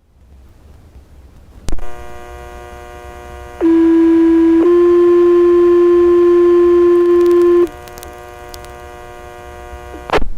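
Fire department radio paging tones: a two-tone sequential alert, with one tone for about a second and then a slightly higher tone held about three seconds. It sits over a steady radio hum, with a click from the radio before and after.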